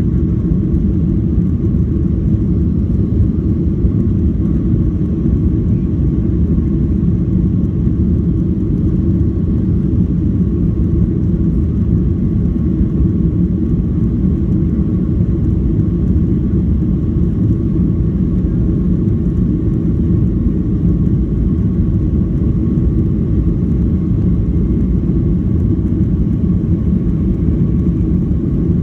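Boeing 737-800 cabin noise: the CFM56 jet engines and airflow make a loud, steady low rumble, with a faint steady tone above it.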